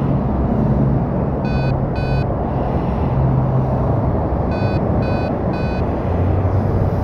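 CleanSpace2 powered respirator's control buttons beeping as they are pressed: two short beeps about a second and a half in, then three more about four and a half seconds in. Under them the respirator's blower fan runs with a steady hum that changes speed and drops in pitch near the end. The unit is still working after a drop test.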